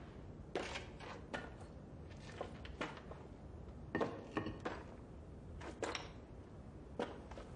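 Broken stone rubble crunching and knocking as it is walked over and shifted: irregular scrapes and clacks of loose stones, the busiest cluster about four seconds in.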